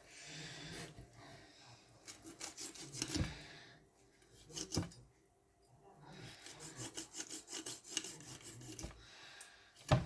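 Repeated rubbing and scraping strokes of kitchen food preparation, with a couple of dull knocks about three and five seconds in and a sharp knock near the end.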